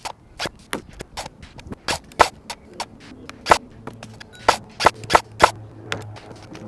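Arcturus AK-12 electric airsoft rifle firing single shots in quick succession, about three a second at an uneven pace, each a sharp crack from the gearbox cycling.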